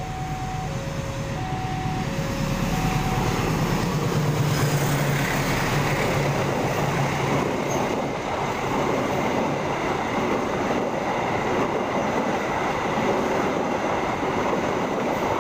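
Level-crossing warning alarm sounding two alternating tones for the first three seconds, then a long passenger train passing close by: the CC206 diesel-electric locomotive's engine hum builds about four seconds in, followed by the steady rolling noise of the coaches' wheels on the rails.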